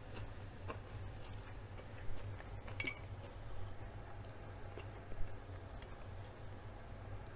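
Metal spoon tapping and clinking against a small glass bowl of soup: a few light ticks and one ringing clink about three seconds in, over a low steady hum.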